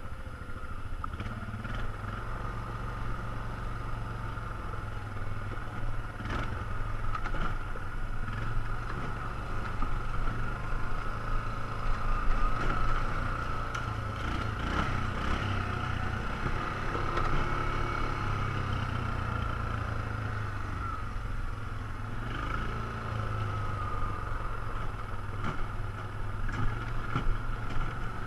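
ATV engine running steadily while riding, with gentle rises and falls in speed and a few brief knocks.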